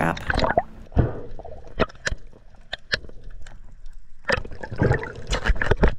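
Underwater sound at a diver's camera: scattered sharp clicks and knocks in the water, with a louder spell of gurgling about four seconds in that lasts until near the end.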